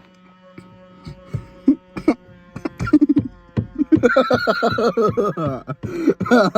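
Power side mirror on a 2000 Ford Explorer adjusting: a steady motor hum with irregular clicks, then from about four seconds in a loud, rapidly pulsing, squawking noise.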